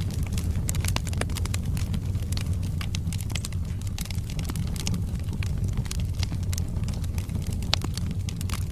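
Wood fire burning in a fireplace: logs crackling with many irregular sharp pops and snaps over a steady low rumble of the flames.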